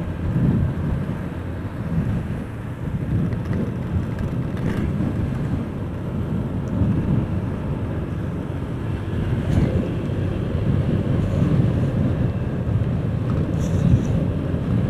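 Steady low rumble of a motorcycle riding at road speed: wind rush over the on-board camera microphone mixed with engine and tyre noise.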